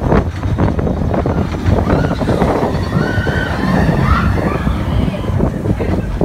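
Big Thunder Mountain Railroad mine-train roller coaster rattling and rumbling along its track at speed, with wind buffeting the microphone.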